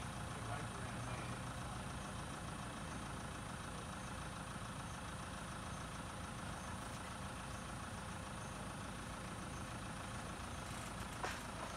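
Toyota SUV engine idling steadily. A single short knock sounds near the end.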